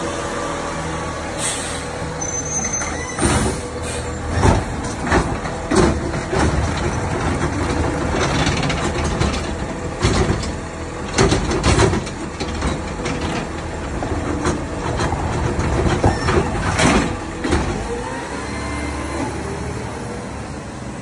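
McNeilus ZR automated side-loader garbage truck working a pickup: the engine and hydraulics run steadily while a string of loud bangs and knocks comes from the arm lifting a trash cart and shaking it out into the hopper, with a hiss of the air brakes.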